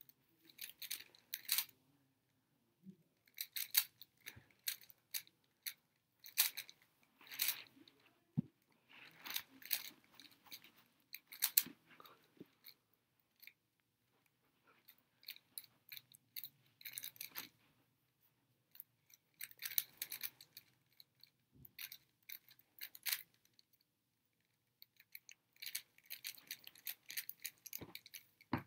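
A 3x3 speedcube being turned by hand: rapid plastic clicking and clacking in bursts of a second or two, with short pauses between them.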